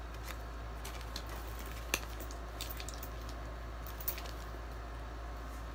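Quiet handling sounds: a paper care card being folded and a handbag lifted by its handles, with a few light clicks, a sharper one about two seconds in and another about four seconds in, over a steady low hum.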